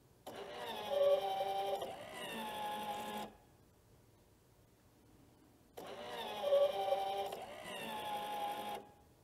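Electric drive of the sharpening stone on a John Deere 6000-series forage harvester, running twice for about three seconds each time. Each run is a steady motor whine that changes pitch partway through and then cuts off.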